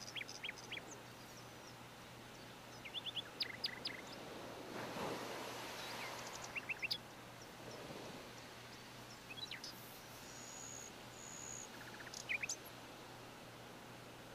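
Birds chirping in the background: short, quick, high chirps in small clusters every few seconds, with a brief steady high whistle about ten seconds in, over faint steady room noise.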